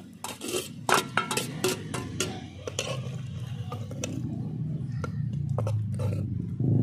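Metal ladle clinking and scraping against the inside of an aluminium pressure cooker as dal is stirred, in a run of sharp knocks. Over the second half a low, steady rumble grows louder.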